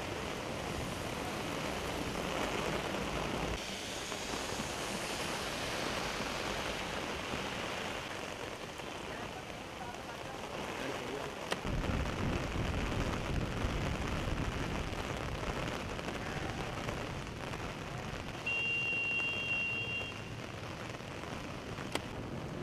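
Heavy rain pouring onto a wet road, a steady hiss whose character changes abruptly twice. Near the end a high, steady two-note tone sounds for about a second and a half over the rain.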